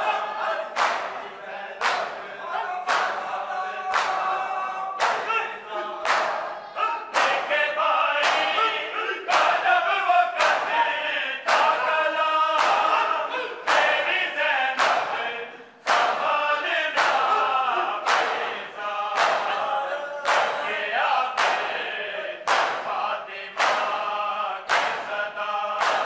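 A group of men chanting an Urdu noha, a mourning lament, in unison without instruments. Sharp open-hand slaps on bare chests (matam) fall in time with it, about one a second.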